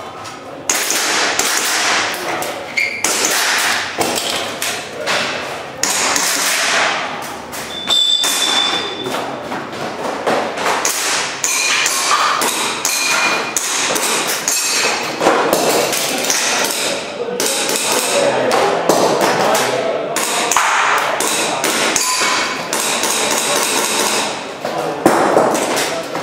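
Airsoft gun being fired through a timed competition stage: dozens of sharp shots in quick, irregular strings, with a few brief ringing pings among them.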